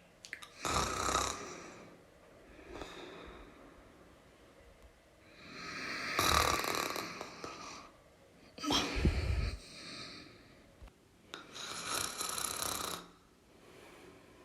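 A person snoring: rasping breaths in and out every two to three seconds, with quieter gaps between. The loudest come about six and nine seconds in, the second one deeper.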